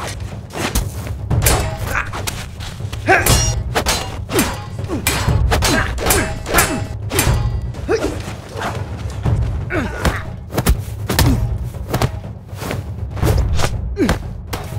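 Staged sword-and-shield fight: a rapid, irregular string of thuds and knocks from blows landing on shields, several a second, over a music score.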